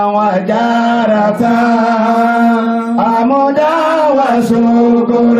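A man's voice chanting an Islamic devotional chant through a microphone and PA. It holds long, steady notes with wavering turns of pitch between them, and there is a winding turn about three seconds in.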